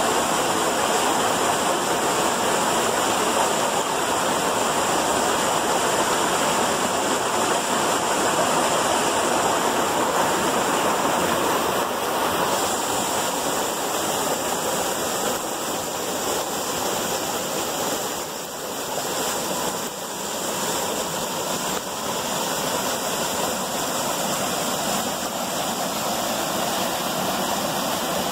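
Small waterfall pouring over boulders into a rock pool: a steady rush of falling water.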